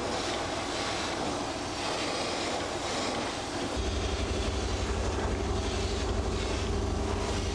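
Airbrush spraying paint, a steady hiss of air. About halfway through, a low motor hum with a fast pulse comes in and keeps running under the hiss.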